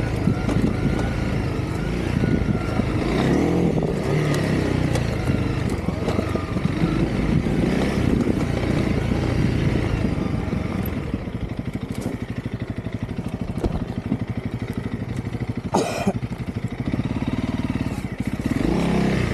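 Honda CRF300L dirt bike's single-cylinder four-stroke engine running, its speed rising and falling. About halfway through it drops to a slower, quieter beat, then picks up again near the end. A brief clatter sounds about three-quarters of the way through.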